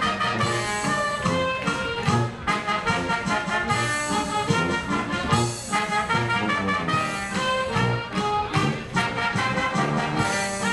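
Oom-pah band music played live, with brass and a steady beat.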